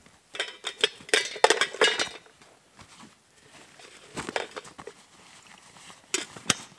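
Bursts of crinkling and crackling as something dry is handled during the first two seconds, then short clusters of light clicks around four and six seconds in as the lid of a small titanium kettle is handled.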